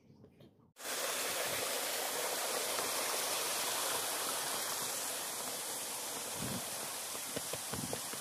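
Steady, even rushing noise that starts abruptly about a second in, with a few soft footsteps on a dirt trail near the end.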